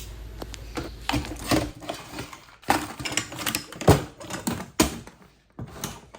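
Swiss Army knife being handled: a run of irregular sharp mechanical clicks and knocks, about two to three a second, thinning out near the end.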